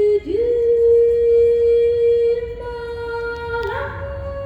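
A singer's voice, unaccompanied, holding long notes. After a brief break it scoops up into a note and sustains it for about three seconds, then steps up to a higher note near the end.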